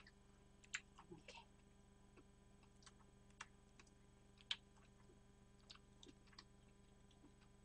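Near silence with scattered faint, irregular clicks of metal tongs touching a frying pan as pieces of sautéed garlic and mushroom are picked out.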